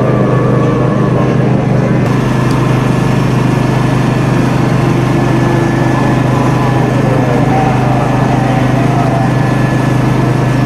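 Motorboat engine running at a steady speed, a constant loud drone with a low hum.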